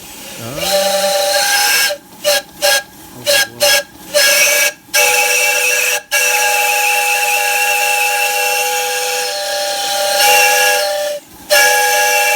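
Loco Parts steam whistle on an Allen Mogul live-steam locomotive, blown again and again: a quick run of short toots about two seconds in, then longer blasts, the longest lasting about five seconds. It sounds a chord of several notes at once over a hiss of escaping steam.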